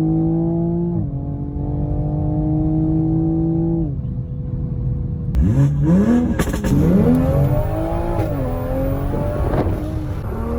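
Sports car engine accelerating hard, its pitch climbing and dropping back twice, about a second in and again near four seconds. Then a different recording: the engine revs up and down quickly several times and pulls up steadily again.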